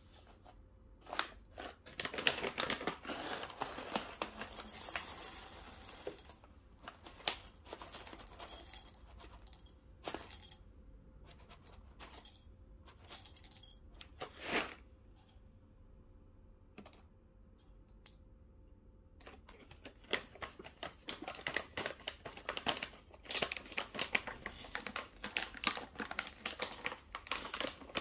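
A coffee-bean bag crinkling as it is opened and handled, and whole coffee beans clattering into a small ceramic bowl. Scattered clicks come through the middle, and a dense run of clicks comes near the end.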